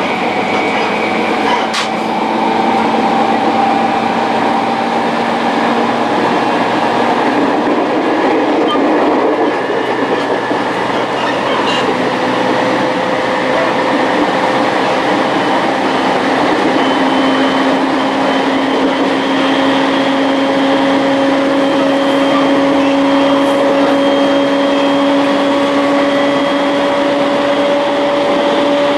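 Electric train running, heard from inside the carriage: a steady rumble of the wheels on the rails, with a couple of faint clicks near the start. A motor whine rises slowly in pitch as the train gathers speed.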